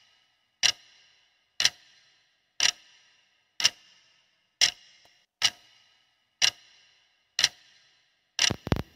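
Quiz countdown timer's clock-tick sound effect, one sharp tick a second, each with a short ring. Near the end, as the timer reaches zero, a quick cluster of three or four clicks.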